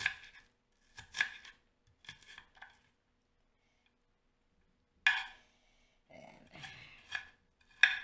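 Kitchen knife chopping onion on a wooden cutting board: a string of irregular knocks from the blade meeting the board. The knocks stop for about two seconds in the middle, then come again more closely spaced.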